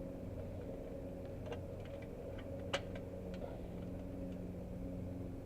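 A zip tie being pulled tight on an exhaust pipe repair: a run of small irregular clicks with one sharper snap about halfway through, over a steady low hum.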